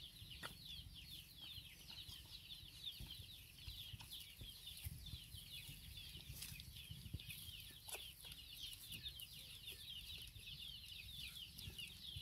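Faint, unbroken chorus of bird chirps: many quick, high, falling notes overlapping without pause. A few soft ticks and rustles of dry leaves and twigs come through now and then.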